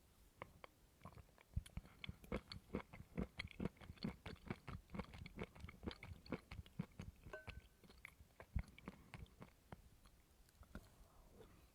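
A person chewing coconut, a rapid run of crunching bites that is densest through the middle and thins near the end, with one brief squeak about seven seconds in.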